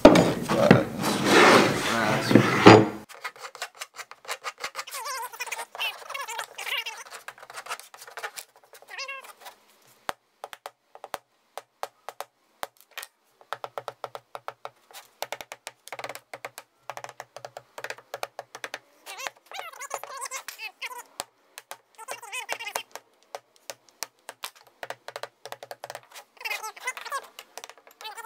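Hand tools distressing a raw wood panel: many quick, irregular taps and clicks of a hammer striking a small metal tool into the wood, with a few brief squeaky scrapes. It opens with a louder, busier stretch of about three seconds.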